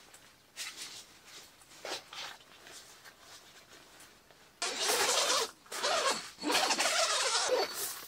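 Tent fabric and ground sheet rustling as they are handled: a few faint rustles at first, then loud, close rustling from about halfway through.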